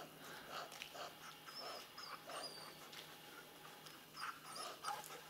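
A hunting laika whining faintly in a few soft whimpers, with a few short high chirps in the background.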